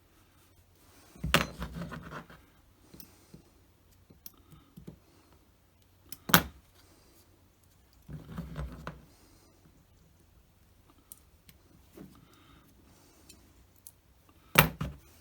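Handling noise from working on a model kit at a bench: a few sharp knocks and clatters, with light rustling and small clicks in between, as parts are handled and pressed together for gluing.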